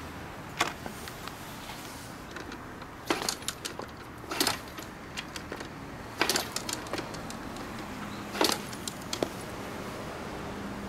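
A handful of short clinking rattles, about five, a second or two apart, over a steady low background. No engine is heard running.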